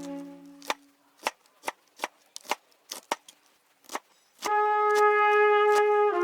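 Background music: a held chord fades out, then about a dozen sharp, irregular knocks or taps over about three seconds, then a sustained brass chord comes in loudly about four and a half seconds in.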